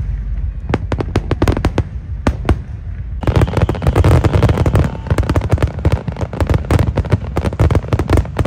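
Fireworks display: separate sharp bangs of bursting aerial shells, which about three seconds in turn into a dense rapid run of many overlapping bangs and crackles.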